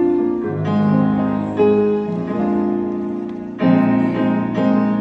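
Piano playing the slow introduction to the song, a few sustained chords struck one after another before the voices come in.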